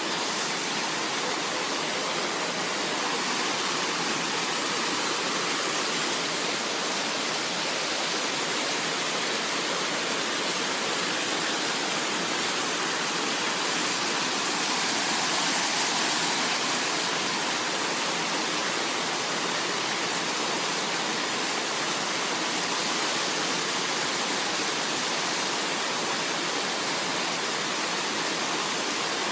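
Water of a small creek pouring over a washed-out stretch of its bank as a little waterfall, a steady rushing splash.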